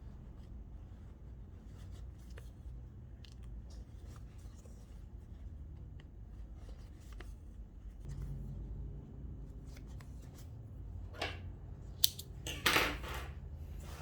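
Quiet handling of denim and thread with faint small ticks over a low steady hum, then near the end a sharp click and a short crunchy snip of scissors cutting the thread.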